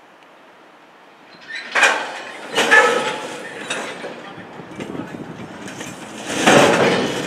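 A train coming past, its wheels knocking loudly over the rail joints, starting about a second and a half in. There are heavy knocks at irregular intervals, the loudest near the end.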